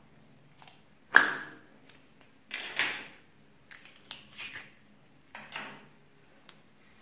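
A blue plastic candy-shaped slime container is opened and squeezed. There is a sharp plastic snap about a second in, then several short crackling, sticky handling sounds as green slime is pulled out of it, and a last small click near the end.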